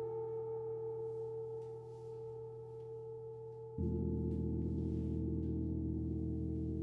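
Gong ringing with a steady, sustained tone. About four seconds in, a deeper gong is struck, and its low, full tone jumps in louder and keeps ringing.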